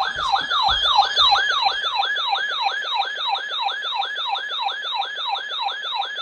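Electronic alert siren: a loud tone sweeping rapidly downward, repeated evenly about four times a second, with a few low knocks in the first second or so.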